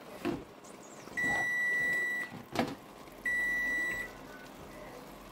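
Electronic kitchen appliance timer beeping: two long, steady high beeps, the second a little shorter, with a sharp click between them.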